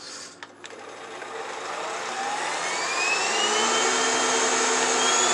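Hihhy cordless stick vacuum switched on: a couple of switch clicks, then its motor whine rises steadily in pitch and loudness as it spins up.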